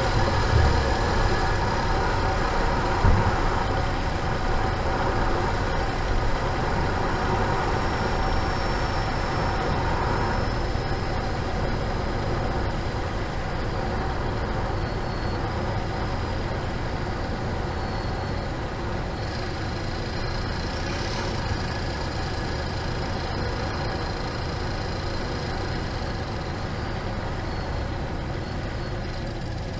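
Hyundai Genesis 5.0L V8 car driving, with steady engine and road noise heard from inside the cabin, getting gradually a little quieter.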